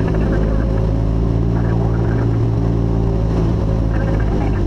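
Light aircraft's propeller engine droning steadily in cruise, heard from inside the cockpit.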